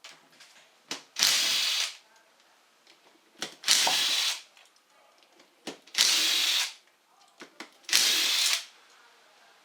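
A cordless power driver runs in four short bursts about two seconds apart, each just after a click, spinning out the engine casing bolts one by one.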